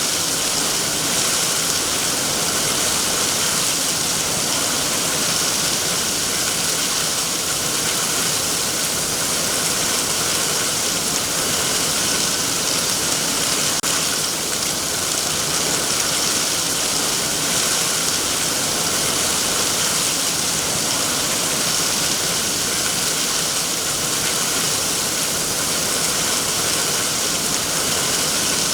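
Heavy rain falling steadily on trees, an even, unbroken hiss with no lulls.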